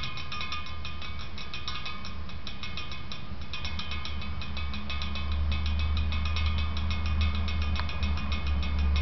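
Rapid light metallic ticking from a hanging metal can-opening tool swinging back and forth between two aluminium soda cans, driven by static charge from a television screen, like an electrostatic bell. A low hum runs underneath and grows louder about halfway through.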